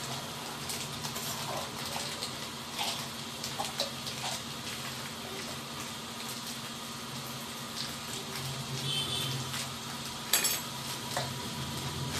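Hand mixing crumbly flour dough in a stainless steel bowl: fingers rubbing and scraping the mixture against the steel, with scattered light clicks and one sharper click about ten seconds in.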